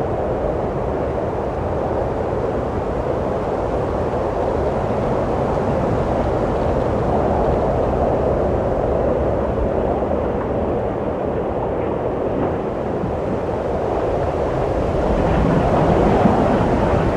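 Wind blowing steadily, a low rushing noise that slowly swells and eases and grows stronger near the end.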